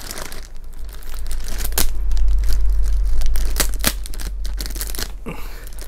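Plastic shipping bag being crinkled and torn open by hand, with many sharp, irregular crackles over a low rumble from handling.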